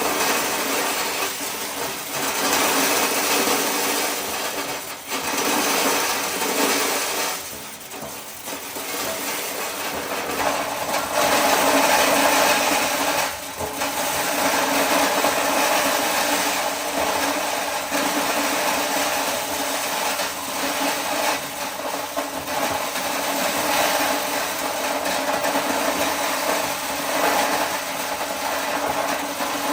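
Motor-driven corn sheller running, a steady motor hum under a dense grinding, rattling noise that dips briefly twice, about a quarter and almost halfway in.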